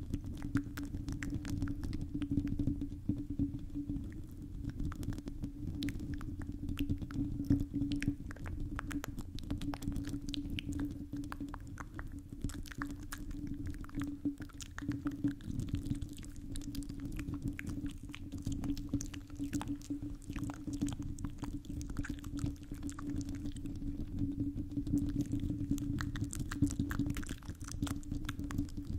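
Fingertips and long nails scratching and rubbing directly on a microphone's metal mesh grille: a continuous run of quick, crackly scratches over a steady low hum and rumble.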